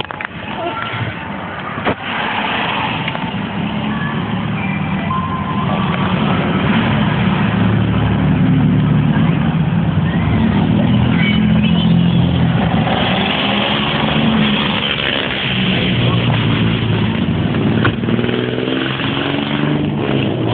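Car driving along a street, its engine and road noise heard from inside the cabin with the window open, building up over the first several seconds and then holding steady.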